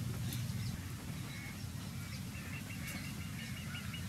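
Birds chirping, with a rapid trill of short, evenly repeated notes starting about two and a half seconds in, over a steady low rumble.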